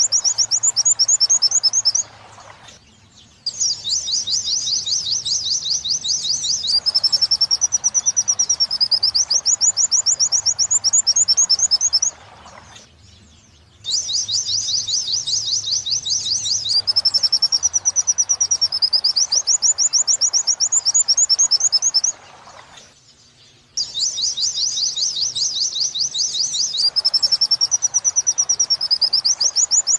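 White-eye (pleci) song of the 'wit-wit linked to kuntilanak' type, played as a masteran recording for training captive birds. Rapid, high-pitched chattering trills rise and fall in pitch in long phrases. Short pauses come about every ten seconds, and the phrases repeat like a loop.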